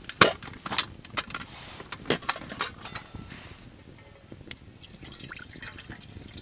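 Metal cookware clinking and knocking as a pot and mug are handled by the fire: a handful of sharp clinks in the first three seconds. Then water is poured into the pot for cooking.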